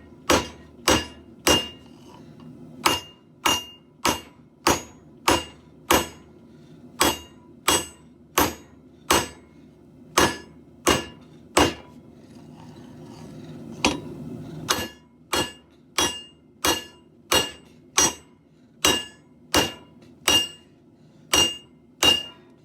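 Hand hammer striking hot steel on an anvil in a steady rhythm, about a blow every 0.6 seconds, each blow with a short metallic ring from the anvil. The hammering pauses for about two seconds just past halfway, then resumes.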